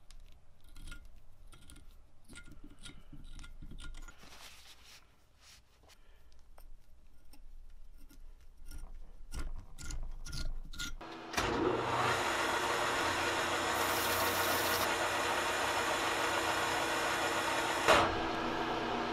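Hand tools scraping and clicking in the holes of a painted metal casting as paint and burrs are cleaned out and the threads chased. About eleven seconds in, a metal lathe starts running steadily with a sanding sound over its motor hum, and there is a sharp click near the end.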